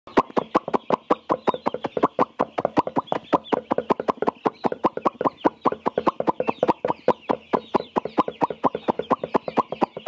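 Broiler chicks peeping as a flock, short high chirps over a fast, uneven run of sharp clicks, about six a second.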